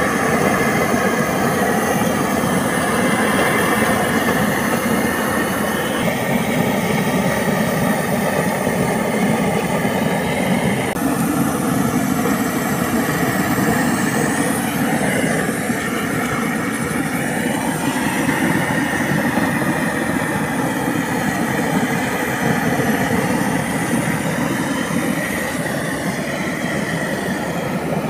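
Gas torch burning steadily and loudly as it singes the bristles off a slaughtered pig's skin; the tone of the rush shifts now and then.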